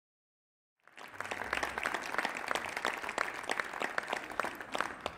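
Audience applauding, the clapping coming in about a second in after dead silence and holding steady.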